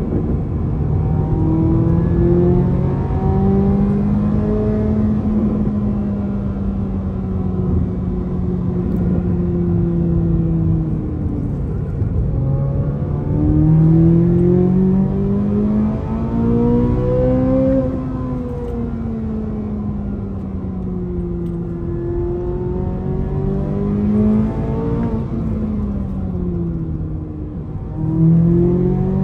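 Chevrolet Corvette C8 Z06's 5.5-litre flat-plane-crank V8 heard from inside the cabin while driving in third gear, its pitch climbing under throttle and easing off again three times, over a steady road rumble.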